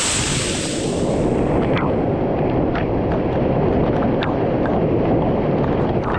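Waterfall pouring straight down onto a bather and the camera: a loud, dense rush of falling water, dull and low with the treble cut away after the first half second, with a few sharp ticks of drops striking the microphone.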